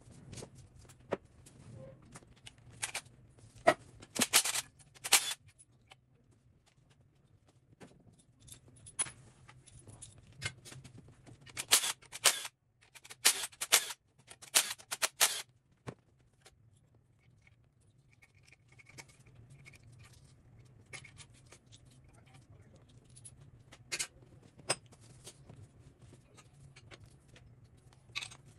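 Sharp metallic clinks and knocks of hand tools and engine parts being handled during an engine teardown, coming in flurries with quiet gaps between, the busiest stretch about halfway through. A steady low hum sits underneath.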